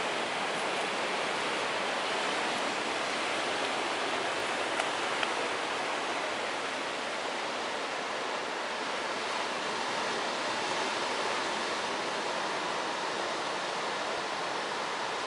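Steady noise of rough surf breaking on a sandy beach in a stormy sea, with wind.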